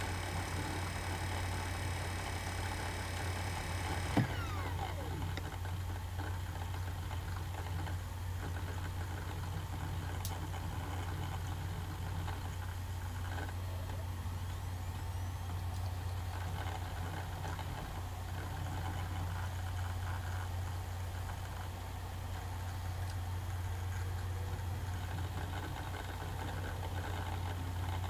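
Dell Latitude D610 laptop running, picked up by a phone resting on its chassis: a steady low hum with a faint whirr. About four seconds in, a set of high whining tones stops with a sharp click, followed by a tone that falls in pitch.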